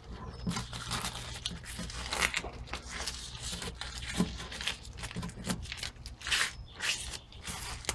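Thin protective-film scraps peeled from polycarbonate sheet being crumpled and torn by hand: an irregular run of crinkling and tearing over a steady low hum.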